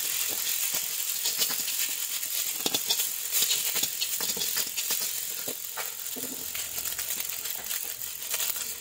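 A metal ladle scraping and knocking against a wok as fried rice is tossed and stir-fried, in quick irregular clicks over a steady high sizzle.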